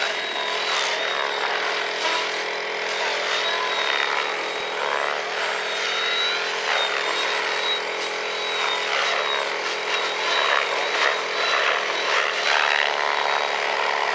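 Radio-controlled model helicopter flying aerobatics, its motor and rotor whine rising and falling in pitch as it swoops and turns.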